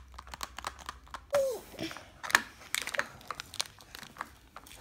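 Small hinged plastic toy cases (Shopkins Petkins backpacks) being handled and snapped open: a run of sharp plastic clicks, the loudest about halfway through, with the crinkle of a thin plastic wrapper being handled.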